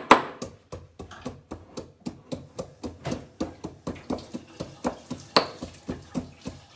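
Pestle pounding walnuts in a small mortar: a steady run of sharp knocks, about three to four a second, with one louder strike about five seconds in.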